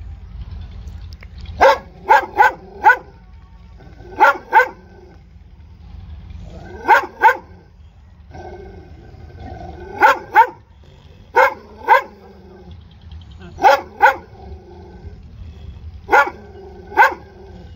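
A brindle short-haired dog barking in short runs. Mostly pairs of loud barks every two to three seconds, with a quick run of four near the start.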